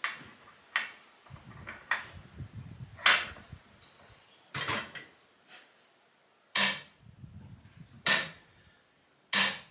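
Click-type torque wrench clicking off again and again as it is pulled against the weighted beam of a torque tester: about eight sharp clicks, one to two seconds apart. Each click is the wrench releasing at its set torque of 310 just as the beam lifts, showing that it is calibrated correctly.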